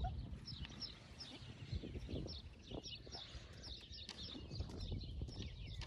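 Small birds chirping, many short high calls repeating over a low rumble.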